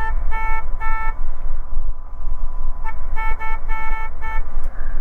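Steady low drone of the light aircraft's engine and cabin, with a run of short horn toots over it: three quick toots, then a pause of about two seconds, then a burst of about five more.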